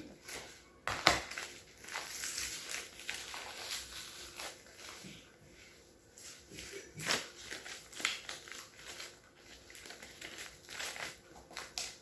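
Plastic blind-bag packaging crinkling and rustling as it is cut open with scissors and handled, with irregular sharp clicks and crackles. The loudest click comes about a second in.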